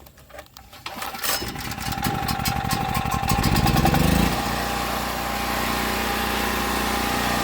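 Predator 6500 portable generator's single-cylinder engine being started: it cranks about a second in, catches and speeds up with a rising pitch, then settles at about four seconds in to a steady run at governed speed.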